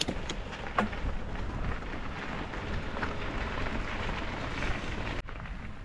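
Bicycle tyres rolling on a gravel trail: a steady hiss with scattered ticks that cuts off suddenly about five seconds in.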